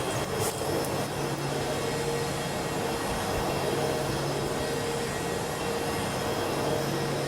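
Steady hiss and hum of the International Space Station's cabin ventilation fans and equipment, a low hum with a fainter higher tone over an even rush of air.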